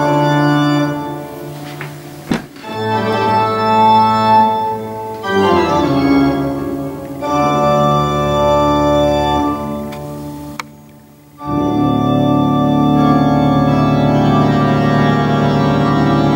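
Organ music with held chords that change every second or two, played back through a homemade stereo valve amplifier with EL34 output valves and its speakers. A sharp click comes about two seconds in and another near ten seconds, then the music dips briefly before a long held chord from about eleven and a half seconds.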